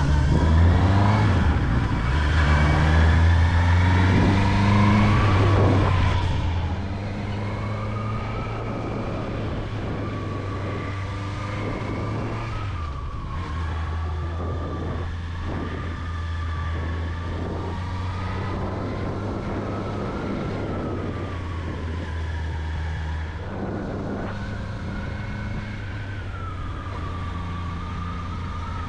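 Honda CB650R inline-four motorcycle engine, rising in pitch as it accelerates over the first six seconds, then running more steadily and a little quieter at cruising speed.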